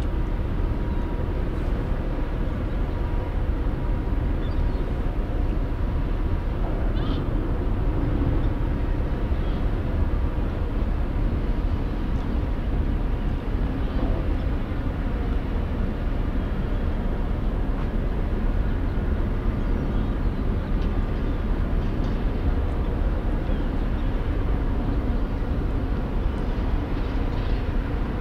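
Steady low rumble and hum of the ro-pax ferry Mega Express's engines and onboard machinery running at the quay, with a steady hum tone held throughout. Faint short high chirps come a few times.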